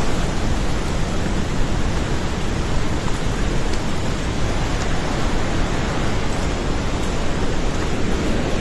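Floodwater of a flash-flooded river rushing steadily and loudly without a break.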